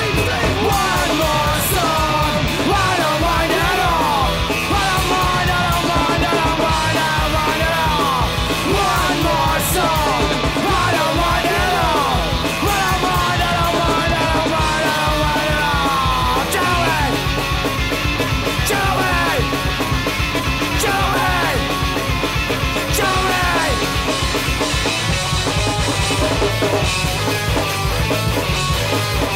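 Rock music with a steady driving beat and a pitch-bending vocal or guitar line over it.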